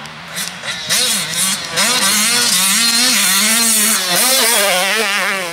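Motocross bike engine running under throttle, its pitch rising and falling as the rider works the throttle, with a brief drop in level near the start.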